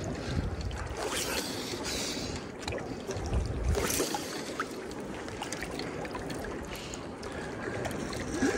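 Small waves lapping against a rocky lakeshore, with wind rumbling on the microphone now and then.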